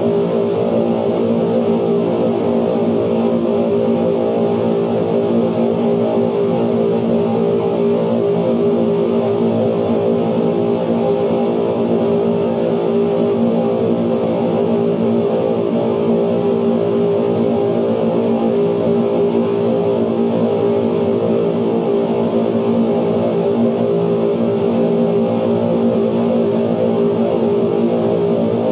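Steady, dense electronic drone from the magnetic soundtracks of running 16mm film, amplified and altered by light sensors on the projection screen. Many held tones sound together, with no breaks and little change.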